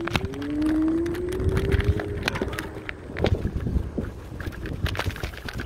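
Scooter rolling over pavement: wheels rattling and clicking over a low rumble, with a tone that rises slowly over the first two seconds.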